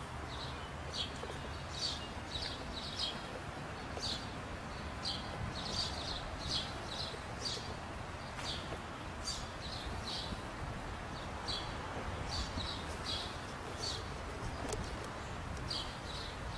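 Small birds chirping: many short, high chirps repeating irregularly over a steady low background rumble.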